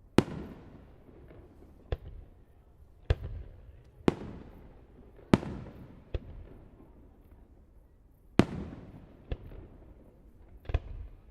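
Fireworks display: shells bursting one after another in about ten sharp bangs at uneven intervals, the biggest ones trailing off in a long rumbling echo.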